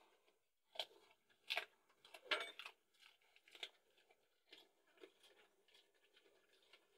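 A dog chewing and gnawing on something held between its front paws: irregular crunches, about one a second, with the loudest cluster a little over two seconds in.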